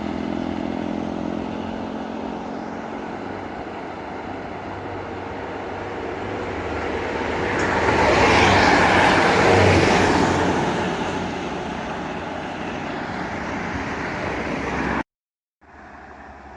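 A road vehicle passing by. Its engine and tyre noise builds to a peak about eight to ten seconds in and then fades back to steady traffic noise. The sound cuts off abruptly near the end, and quieter traffic noise follows.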